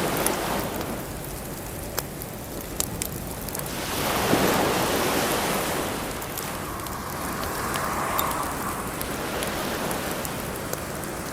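Waves washing up the beach in slow surges, one every few seconds, with sharp pops and crackles from a wood bonfire.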